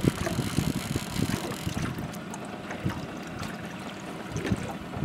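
Fishing boat moving slowly across the lake: water sloshing against the hull, with wind buffeting the microphone in irregular low thumps.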